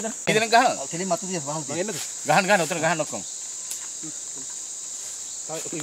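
Steady high-pitched drone of forest insects, with men talking over it for the first three seconds and again briefly near the end.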